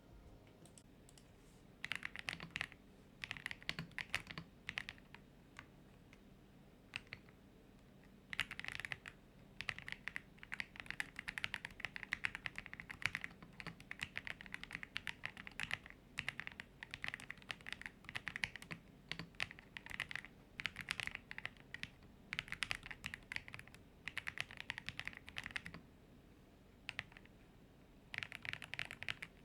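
Typing sound test on an Ajazz AK820 GTS budget mechanical keyboard: stock switches under double-shot PBT keycaps, gasket-mounted on a polycarbonate plate with plate foam and PE foam, stabilizers lubed, otherwise as it comes out of the box. Runs of quick keystrokes with short pauses between them start about two seconds in.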